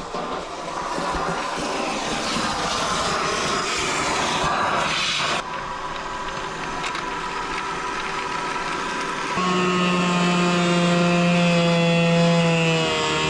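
Wet/dry shop vacuum running with a continuous rush of air as debris is sucked out of a wall cavity. About two-thirds of the way in, a steady humming tone joins the noise and drifts slightly lower in pitch.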